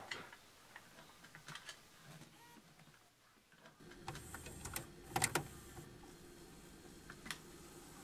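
A videotape cassette being handled and pushed into a VCR: light plastic clicks, then about four seconds in the deck's loading mechanism starts with a low hum and a few sharper clunks as it takes the tape in.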